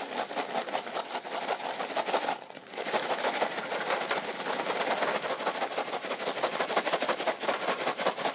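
Opened microwave popcorn bag shaken hard and fast, popcorn and unpopped kernels rattling against the paper in a rapid, continuous clatter, with a brief pause about two and a half seconds in.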